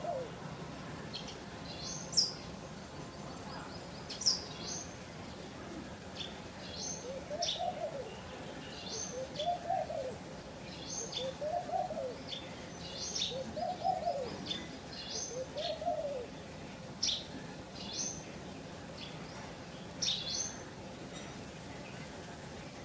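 Birds calling: short high chirps repeated every second or two throughout, and a low cooing call that rises and falls, given five times about two seconds apart in the middle.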